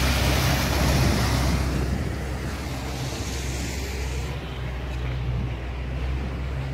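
A boat's outboard motor running steadily under way, its low hum under a rush of wind and water noise on the microphone.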